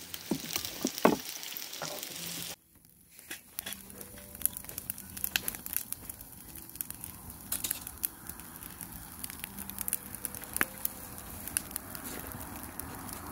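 Pork sizzling on a griddle, then from about three seconds in, split firewood burning in two metal fire pits, crackling with frequent sharp pops.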